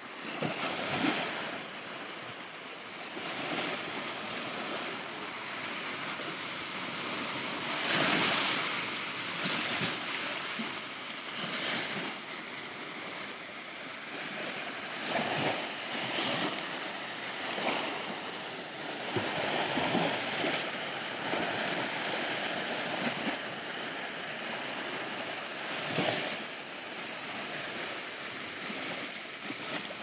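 Small Black Sea waves breaking and washing up onto a sandy beach: a steady wash of surf that swells every few seconds as each wave comes in.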